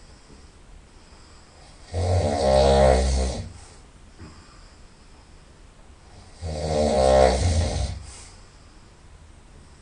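A person snoring loudly through the nose: two long, low buzzing snores about four and a half seconds apart, each lasting about a second and a half, with quiet gaps between them.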